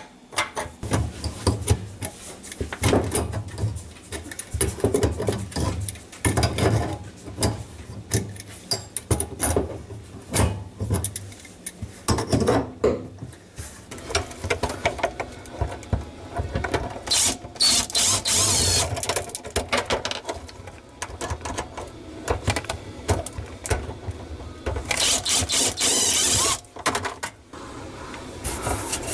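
Knocking, clicking and rattling of under-sink plumbing being worked loose by hand: plastic drain pipes and fittings knocked and twisted, with two longer scraping noises.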